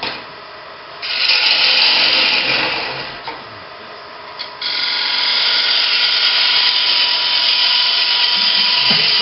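A turning gouge cuts into the inside of a wooden bowl spinning on a lathe, throwing off shavings with a loud, hissing scrape over the lathe's steady hum. One short cut starts about a second in and fades. A longer, steady cut starts a little past the middle.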